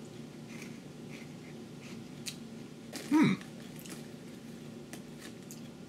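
Faint crunching as a light, puffed corn snack is bitten and chewed, with a short voiced "mm" falling in pitch a little after three seconds in.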